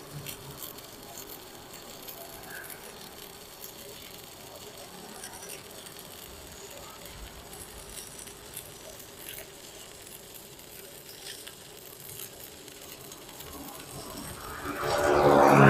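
Stick-welding arc from a JACPRO ARC200PRO inverter welder burning a 2.5 mm electrode on steel plate, set at 150 A: a steady crackling sizzle with scattered pops. Near the end a much louder pitched sound cuts in for about a second and a half.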